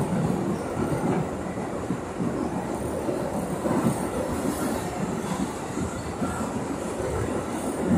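R62A subway car running along the track, heard from inside the car: a steady rumble of steel wheels on rail.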